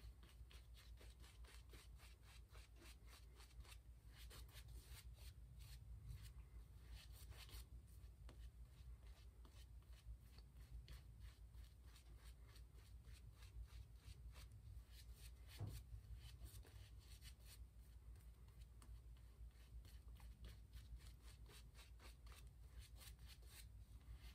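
Faint, steady scratchy rubbing of a vintage Peerless shaving brush working soap lather over a face with a day's stubble, with one slightly louder rub about two-thirds of the way through.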